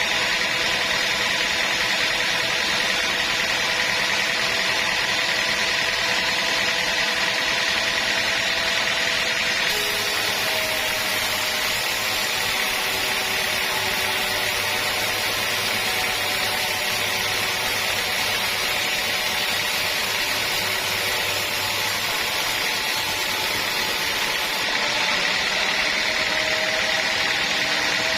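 Sawmill saw running steadily: a continuous mechanical drone with a few held whining pitches. About ten seconds in, the pitches shift and the sound turns brighter and hissier, and it returns to its first tone near the end.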